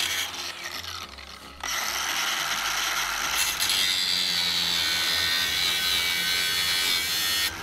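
Angle grinder with a cut-off wheel cutting through the steel inner bezel ring of an old truck headlight. The grinding eases off about a second in, then runs steadily again and stops abruptly near the end.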